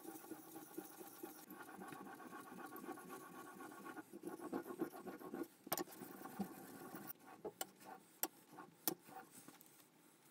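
Steel plane blade rubbed back and forth on a wet sharpening stone, a steady gritty rasping stroke after stroke. About seven seconds in the rubbing stops and a few sharp clicks follow.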